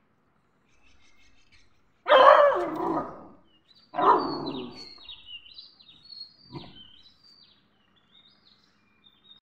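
A puppy gives harsh, growling barks: two long ones about two and four seconds in, and a short one near seven seconds. Short, high, falling chirps repeat through the second half.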